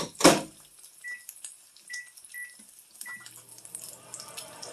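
Microwave oven door shutting with a loud clunk, then four short keypad beeps as the cooking time is set, and the microwave starts running with a steady low hum about three seconds in.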